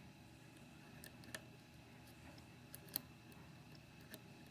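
A handful of faint, scattered clicks from a lock pick and tension wrench working the pins and side lever inside a Mauer DT1 six-pin lock, the sharpest about three seconds in.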